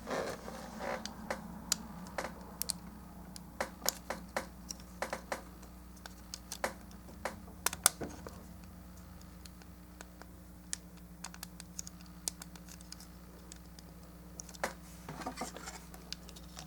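Small plastic model-kit parts handled and pressed together: irregular light clicks and taps, a few sharper snaps, as bars are fitted into clips on a Gundam jetpack. A faint steady hum runs underneath.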